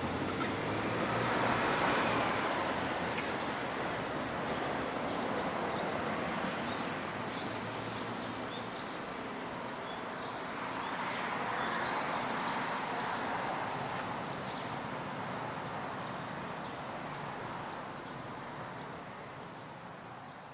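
Outdoor traffic noise as road vehicles pass, one swelling up about two seconds in and another around twelve seconds, with small birds chirping through most of it; the sound fades out near the end.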